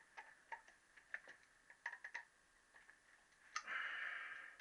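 Faint scattered clicks and light taps of hands working among a motorcycle's wiring and connectors, with a short scraping rustle near the end.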